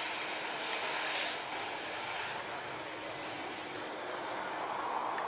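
Boeing 757 airliner's jet engines running steadily as it rolls past, heard as a high, even hiss with a low rumble beneath.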